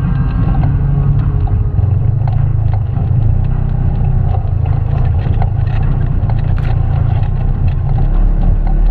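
Side-by-side UTV engine running under load, a loud low drone, with frequent knocks and rattles as the vehicle jolts through muddy, rutted trail.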